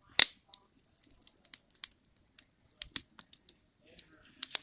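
Wood campfire crackling: irregular sharp pops and snaps, with the loudest pops just after the start and near the end.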